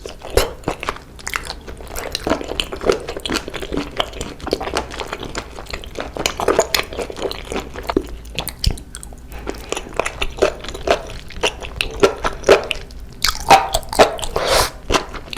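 Close-miked chewing and biting on octopus: wet smacking and squishing with irregular sharp crunchy clicks, busiest near the end.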